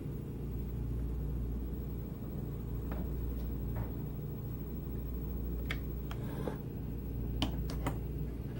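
Steady low hum of machinery running at a jeweler's bench, with a few light, irregular clicks and taps of small tools in the second half.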